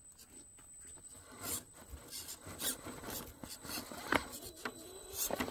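RC rock crawler's rubber tires and chassis scraping and clunking over rocks and dry needle litter as it climbs, with irregular rubbing and clicks, a sharp knock about four seconds in and a quick cluster of knocks near the end.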